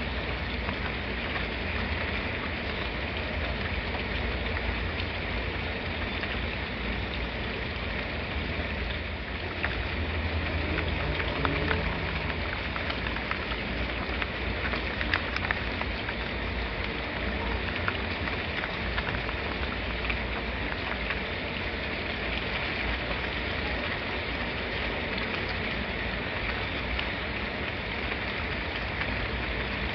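Steady rain falling on a surface, an even hiss with scattered sharper drop ticks; a little more low rumble about ten seconds in.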